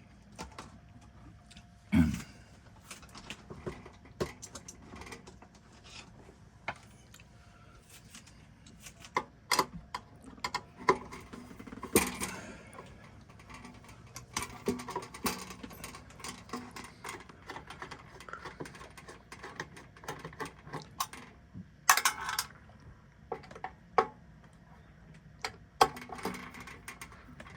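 Screws being backed out of a bread maker's housing with a screwdriver: scattered small clicks and metallic knocks, with runs of quick ticking in the middle and sharper knocks about 2, 12 and 22 seconds in.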